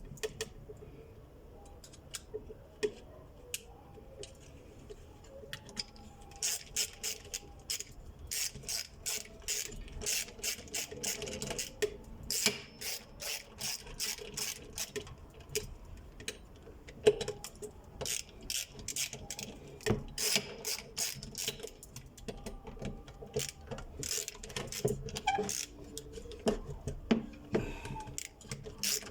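Irregular clicks and clinks of metal parts and hand tools being handled while the cork clutch lining of a sewing machine clutch motor is replaced. The clicks are sparse at first and come thick and fast from a few seconds in.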